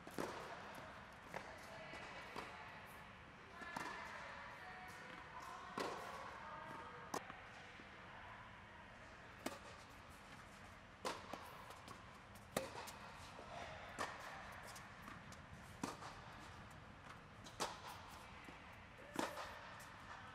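Tennis balls struck by rackets and bouncing on a hard court in a rally: sharp pops about every one and a half seconds.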